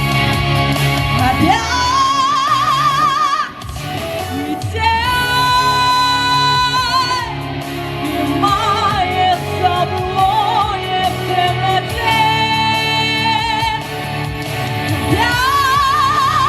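Live pop song: a woman sings long, high held notes with wide vibrato, without clear words, over the band's backing.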